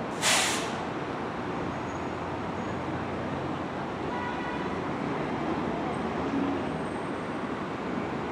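A city bus's air brakes let out a short, sharp hiss just after the start. Under it, bus engines and traffic run steadily.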